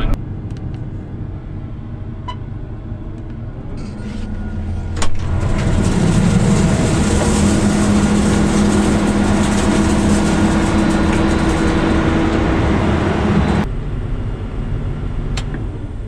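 John Deere combine running. For about eight seconds in the middle it is much louder, with a steady hum, while the grain tank extensions fold open, and it stops suddenly back to a lower rumble.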